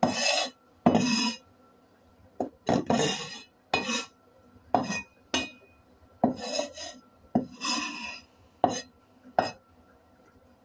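Cleaver blade knocking and scraping on a wooden cutting board, about a dozen separate strokes, each a sharp knock followed by a short scrape, as chopped pieces are gathered up on the blade.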